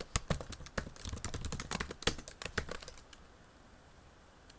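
Computer keyboard typing: a quick, uneven run of keystrokes that stops about three seconds in.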